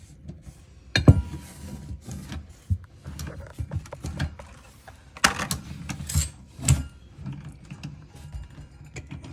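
Metal wrenches clicking and clanking against the old angle stop's fittings as it is worked loose. The loudest is a clank about a second in that rings briefly, and a quick run of clacks follows a few seconds later.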